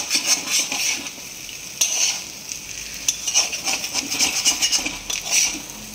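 Metal spatula scraping and stirring spiced potato cubes in a kadai, with oil sizzling underneath, in quick irregular strokes. The potatoes are browned and the roast is ready to come off the heat.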